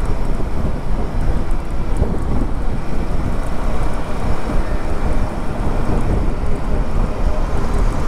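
Wind buffeting a helmet-mounted microphone on a moving motorcycle: a loud, steady rumbling rush that does not let up.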